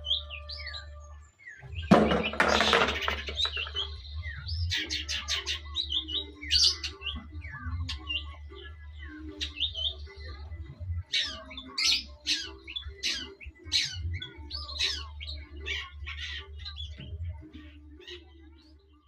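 Long-tailed shrike (cendet) singing a fast, varied run of short chirps, trills and harsh notes, with a loud harsh scratchy burst about two seconds in. A steady low hum runs underneath.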